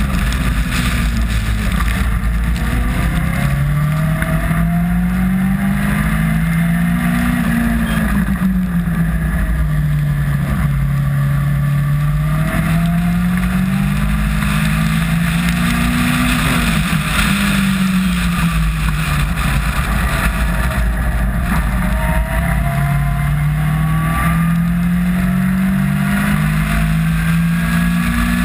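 Caterham R300 Superlight's Ford Duratec four-cylinder heard onboard under racing load, its note climbing in long rising sweeps and dropping back several times as the car accelerates and slows. The hiss of wind and rain spray runs underneath.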